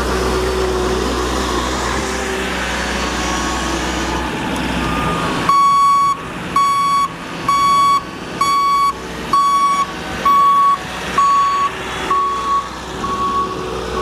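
Sanitation snowplow truck's engine running, then from about five and a half seconds in its reversing alarm beeps steadily, roughly once a second, as the truck backs up.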